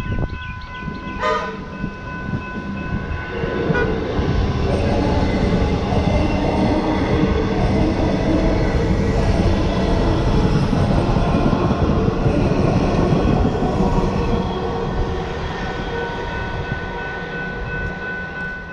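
A Melbourne Metro Comeng electric suburban train gives a short horn toot about a second in. From about three and a half seconds it passes close by, its wheels and bogies rumbling and clattering over the rail joints. A steady high tone sounds under the train noise at the start and comes back near the end as the train moves away.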